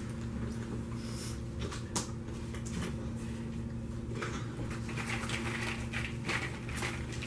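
Caramel popcorn being scooped by hand from a glass bowl and chewed: scattered crackly clicks and crunches, busier in the second half, over a steady low hum.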